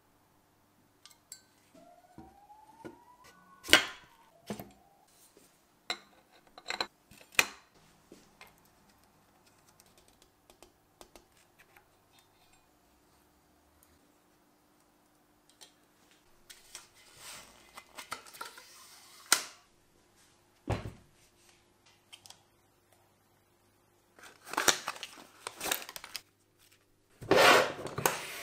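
Hand tools and bicycle crankset parts being handled: scattered metallic clicks, taps and a few sharp knocks, with a deeper thud a little past the middle. Stretches of rubbing and rustling come about two-thirds of the way through and again near the end.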